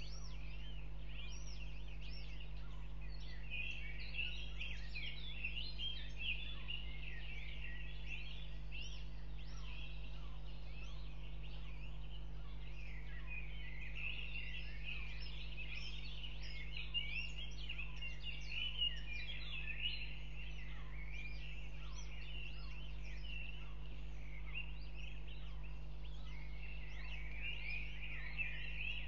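Many short, high chirps overlapping without a break, from birds at and around a goshawk nest where newly hatched chicks are being fed, over a steady low hum.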